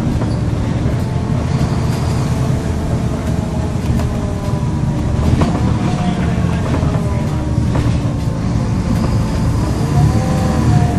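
Wrightbus StreetCar bus's Volvo B7LA six-cylinder diesel running under way, a low rumble with a whining turbocharger whistle over it. The whistle shifts in pitch, rising and falling a few times as the throttle changes.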